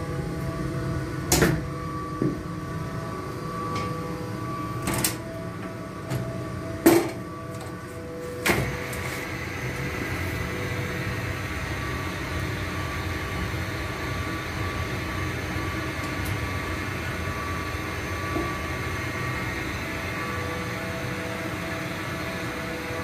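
Old wood-chip boiler plant running, a steady mechanical hum of several held tones. A handful of sharp knocks come in the first nine seconds, and after the last one a higher tone joins the hum.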